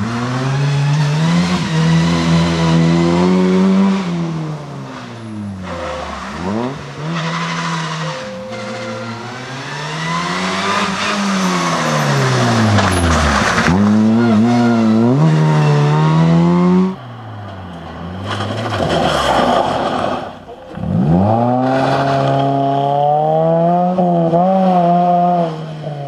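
Rally car engines at full throttle on a stage, the pitch climbing with each gear and falling back on gear changes and lifts as the cars pass. It cuts off abruptly about 17 seconds in, then another car accelerates hard.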